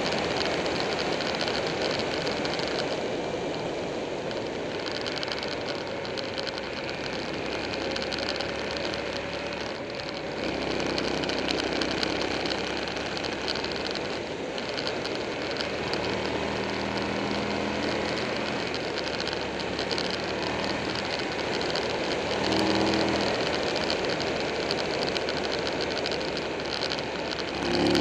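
Buell 1125R motorcycle's V-twin engine running at speed, its note rising and falling with the throttle, under heavy wind rush on the microphone. It pulls harder about two-thirds of the way through and again at the end.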